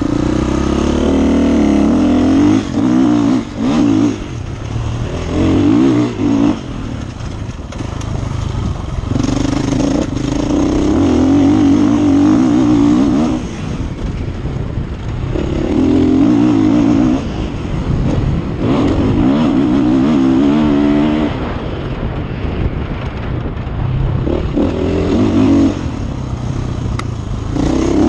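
Enduro motorcycle engine heard from on the bike while it is ridden over a dirt course: repeated bursts of hard throttle, easing off in between, about seven times over the stretch.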